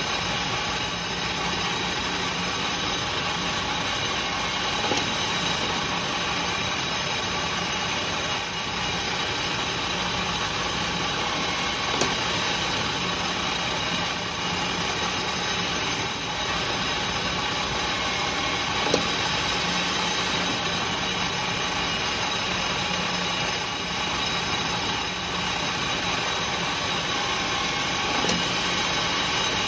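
Metal lathe running steadily while a turning tool cuts a dish into an aluminium piston crown: an even machine whine with several fixed tones. A couple of brief sharp clicks break in, the loudest about 19 seconds in.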